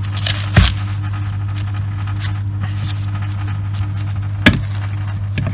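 Small metal clicks and clinks of brake caliper pistons being handled and worked out of a Brembo four-piston brake caliper, with two sharp knocks, about half a second in and again near the end. A steady low hum runs underneath.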